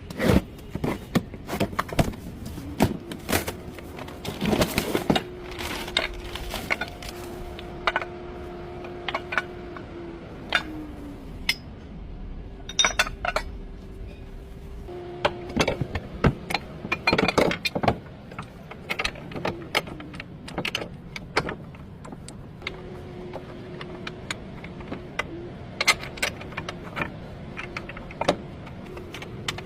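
Repeated sharp metallic clinks and knocks at irregular intervals over a steady low hum, from metal parts of a car's steering linkage and the tools worked on it.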